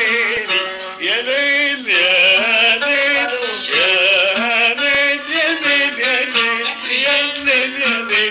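Male solo voice singing highly ornamented, melismatic Arabic phrases in the Aleppine tarab style, with short breaks between phrases and a steady low tone beneath. Qanun accompanies the voice. The sound comes from an old home recording with dulled treble.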